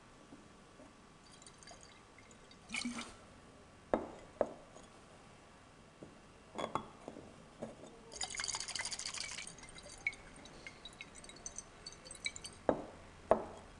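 Rubber-stoppered glass conical flask holding concentrated hydrochloric acid and 2-methylpropan-2-ol: a scattering of sharp pops and glassy knocks, with a short hiss about eight seconds in, as the pressure building inside is let out.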